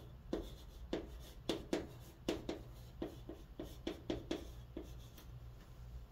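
Chalk writing on a chalkboard, a quick run of short taps and scratches as one word is written. It stops about five seconds in.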